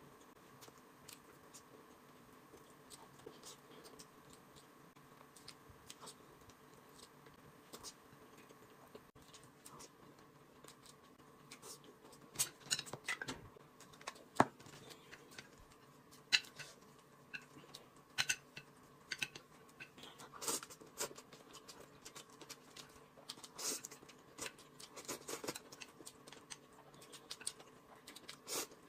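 Faint room tone with scattered small clicks and scrapes of eating utensils and food being handled at a table. From about twelve seconds in, sharper, louder clicks come every second or two as chopsticks knock against a small can of chili sauce and a plate of noodles.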